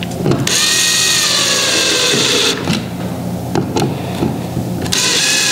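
Spectre cord drawn tight against the plastic rudder cap and its screws as it is wrapped, making two long hissing rubs: the first lasts about two seconds, the second starts near the end.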